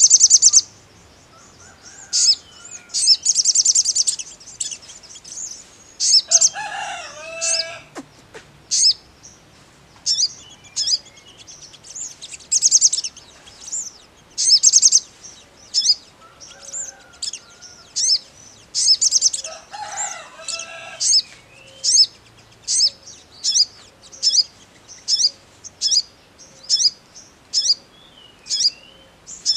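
Male olive-backed sunbird singing: high, sharp chirps and short trills. In the second half they settle into an even run of single chirps, about three every two seconds.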